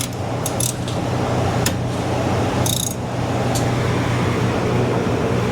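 A steady low machine hum, with a few light clicks and taps over it.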